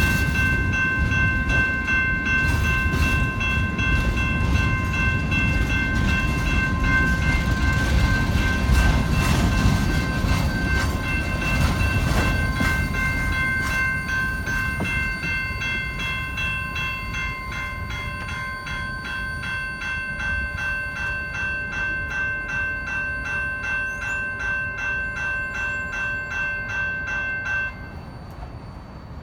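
Train rolling past, a low rumble that fades as it moves away, over steady high ringing tones of several pitches that stop suddenly near the end.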